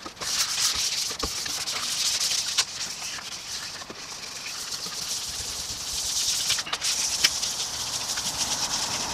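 1000-grit abrasive paper being rubbed by hand over the primed steel wing of a VW Golf Mk5, wetted with water: a continuous hissing rasp that swells and eases with the strokes, with a few light knocks.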